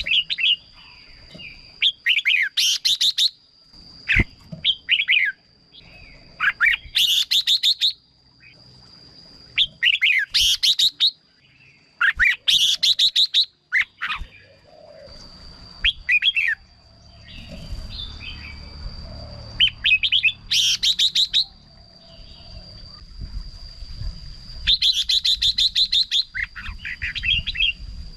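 Red-whiskered bulbul singing: short, loud, bright warbling phrases repeated every two to three seconds. A thin steady high tone runs underneath, and a faint low rumble comes in during the second half.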